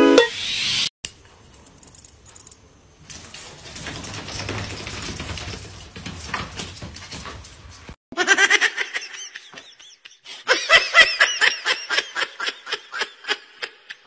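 Bursts of high-pitched human laughter, rapid and giggling, filling the second half. Before it comes a short pitched musical note at the start and a stretch of soft, noisy sound.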